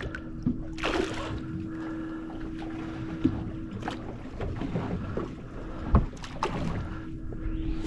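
Offshore fishing boat: water slapping against the hull and wind on the microphone over a steady hum, with a splash about a second in and a sharp knock about six seconds in.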